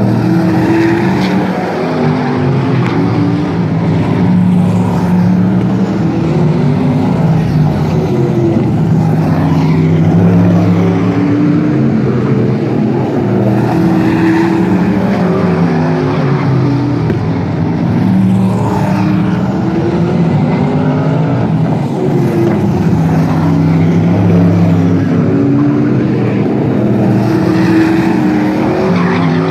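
Several non-winged sprint car engines racing at full throttle around a short oval. Their pitch keeps rising and falling as the cars power down the straights, lift into the turns and pass by.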